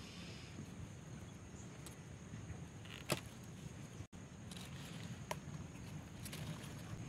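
A sharp snap about three seconds in as a ripening tomato is pulled off the vine, with a few fainter clicks of handled stems and leaves after it.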